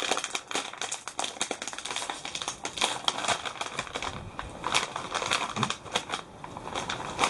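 Plastic bag of Calbee Kappa Ebisen prawn crackers being torn open and handled, crinkling and crackling irregularly.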